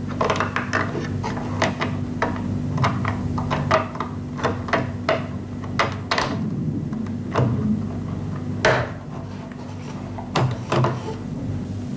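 Irregular clicks, taps and knocks of hands working on a tube oscilloscope's chassis while a new ECC83 tube is fitted in the preamplifier. A steady low hum runs underneath.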